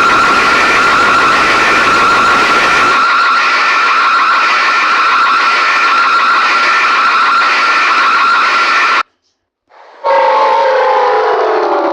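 Civil defence siren holding a steady high tone that cuts off abruptly about nine seconds in. After a second of silence a second siren starts, its pitch sliding slowly down.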